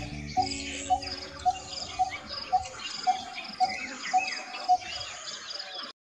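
Coppersmith barbet calling its metronomic 'tuk tuk tuk', a single note repeated evenly about twice a second.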